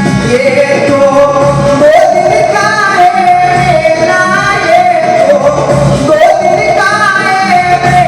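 Devotional bhajan music: a melody of long held, slightly bending notes, sung or played, over instrumental accompaniment with a steady beat.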